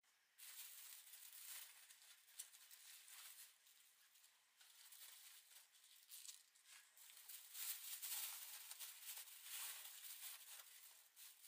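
Faint rustling and crinkling of a thin plastic bag as hands move leafy vegetables around inside it. It starts about half a second in, comes and goes unevenly, and is louder in the second half.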